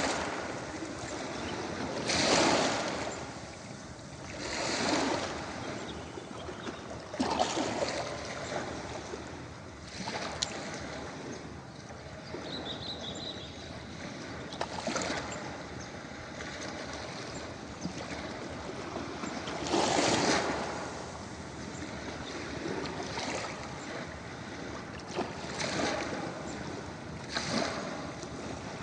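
Ocean waves washing in on a beach, a steady hiss of surf with a fresh wave surging in every few seconds.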